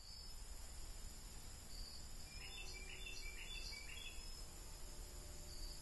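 Faint woodland ambience: insects trill steadily in a high, even band. About two seconds in, a bird sings a short phrase of several quick notes.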